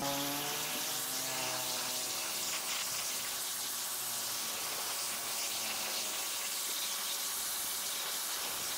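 A steady rushing hiss of spray, with no change in level, that cuts off abruptly at the end.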